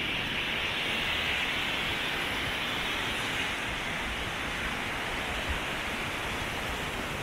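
A steady, even rushing hiss with no speech.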